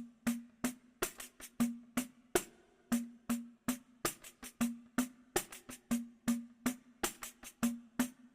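Background music: a sparse drum-machine beat of sharp clicks, about three a second in an uneven rhythm, many landing with a short low note.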